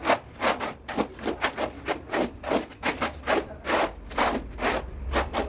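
Quick back-and-forth rubbing or scraping strokes on a hard surface, about four a second, each a short dry rasp.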